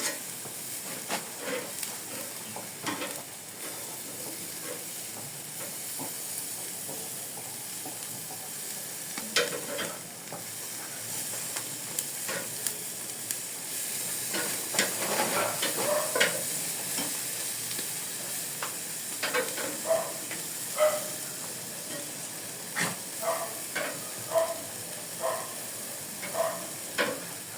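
Chicken wings sizzling on a barbecue grill as they are turned, with a steady hiss and many short clicks and clinks, thickest in the second half.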